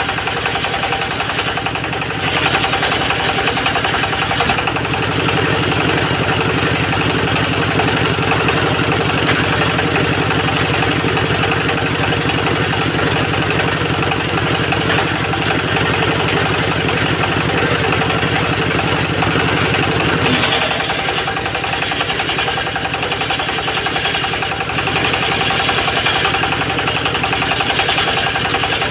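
Engine of a homemade circular saw rig (serkel) running steadily while sawing teak into 3 cm boards. About twenty seconds in, its low hum drops away and the sound changes.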